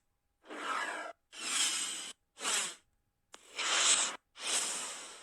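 A run of five short whoosh transition sound effects from a 'fast switch' library, played one after another, each a rushing swish lasting well under a second.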